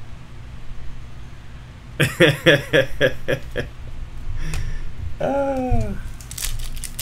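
A man chuckles in a quick run of about six laughs, then gives a short falling vocal 'ohh'. Near the end a foil baseball card pack crinkles and tears as it is ripped open.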